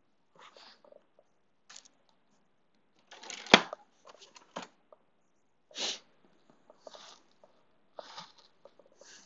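Rustling and handling of clothes and belongings while packing, in scattered short bursts, with one sharp knock about three and a half seconds in, the loudest sound.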